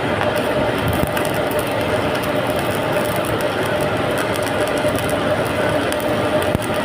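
Electric arc welding: a steady crackling hiss from the arc, with a constant hum underneath, unbroken throughout.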